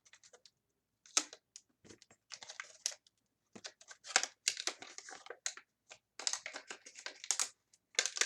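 Packaging being handled and opened by hand: irregular quick clicks and crinkly rustles, thickest through the second half.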